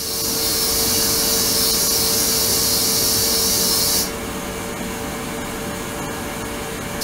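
Ultrasonic tank of water running: a steady hiss over a constant hum. The high hiss drops away about four seconds in, leaving a lower, quieter hum.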